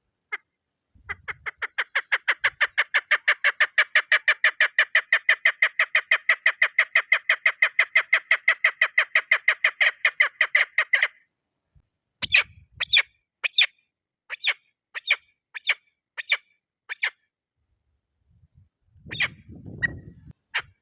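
Female chukar partridge calling: a fast, even run of clipped notes, about five a second, that builds up at the start and goes on for about ten seconds, then breaks into slower single notes. One more call comes near the end over a low rumble.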